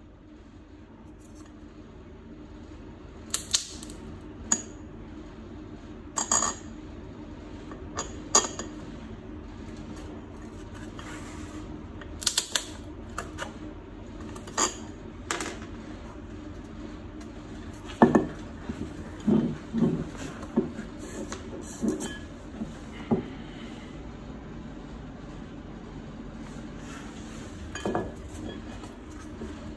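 Irregular metallic clinks and knocks from a disc brake caliper being handled and pressed onto a foam-board disc on a stone floor, busiest about two-thirds of the way through, over a steady low hum.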